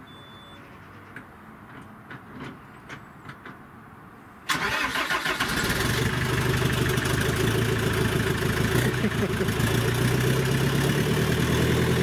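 Iveco Daily van's diesel engine, just put back together, starting up suddenly about four and a half seconds in and settling into a steady idle, running with no exhaust fitted. Before it, a few faint clicks.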